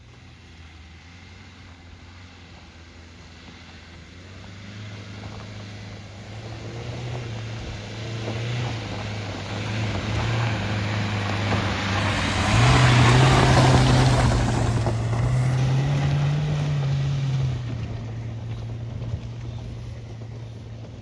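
Dacia Duster 1.5 dCi diesel 4x4 driving over a stony dirt track, its engine note steady and growing louder as it approaches. It is loudest a little past halfway, where tyre noise on the gravel joins in and the engine pitch rises briefly, then fades as the SUV moves away.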